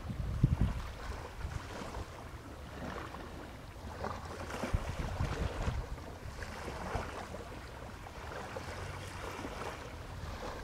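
Wind buffeting the microphone, with short gusts about half a second in, over a low boat engine and water on open sea.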